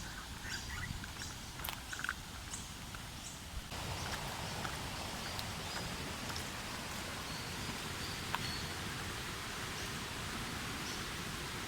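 A steady rush of flowing creek water, swollen by storm rain, which comes in abruptly about four seconds in. Before that there is quieter outdoor ambience with a few clicks and short, high bird chirps.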